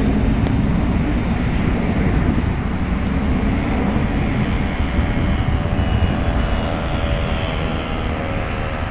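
Boeing 767-300F freighter's jet engines at takeoff power: a loud, steady, deep roar that eases slightly, with faint whining tones coming through in the second half.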